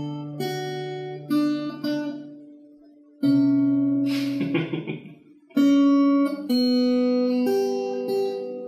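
Martin LXM small-bodied steel-string acoustic guitar played slowly: chords and notes picked and left to ring out, with short pauses between phrases. There is a brief scratchy noise about four seconds in.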